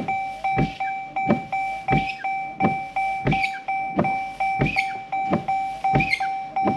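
2012 Dodge Journey windshield wipers sweeping across the glass, with a thump at the end of each stroke about every two-thirds of a second and a short rubbery squeak on every other stroke. A steady high tone runs underneath.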